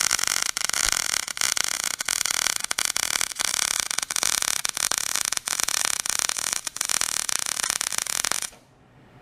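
Gas-shielded arc welding, most likely a MIG welder, laying beads to weld new mounting tabs onto a manure spreader. The arc gives a steady crackling hiss with many brief breaks, then cuts off suddenly about eight and a half seconds in.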